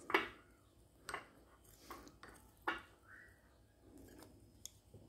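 Metal spoon and wooden chopsticks knocking and scraping against a ceramic rice bowl: four sharp clinks in the first three seconds, the first the loudest, then a few fainter taps.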